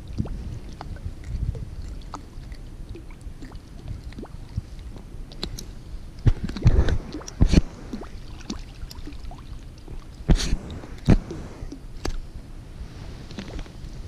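Wind rumbling on the microphone, with a series of sharp knocks and scuffs of handling close to it: a cluster about halfway through and three more a few seconds later.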